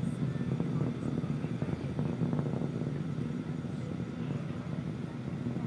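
Falcon 9 rocket's first-stage engines heard from far off after liftoff: a low, steady rumble.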